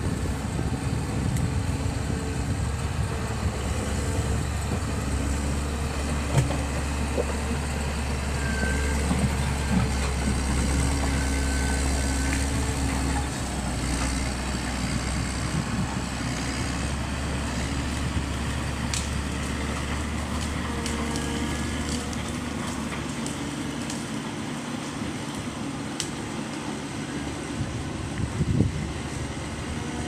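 Caterpillar 140M motor grader's diesel engine running under load while it grades a gravel road, with a few sharp knocks of stones. The low engine drone drops about halfway through and falls off further near the end as the machine moves away.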